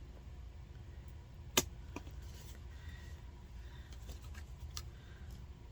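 Faint handling of a taped cardboard box being worked open: one sharp click about a second and a half in and a few fainter ticks, over a steady low hum.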